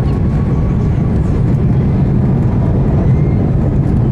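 Steady, loud low rumble of an Airbus A330's jet engines and airframe heard from inside the passenger cabin.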